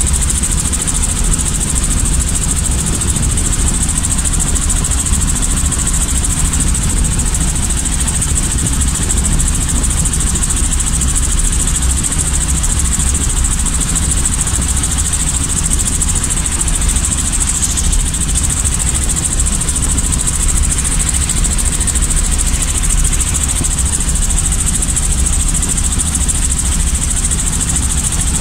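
Robinson light helicopter's piston engine and rotor running steadily, a constant low throb with an even high hiss above it.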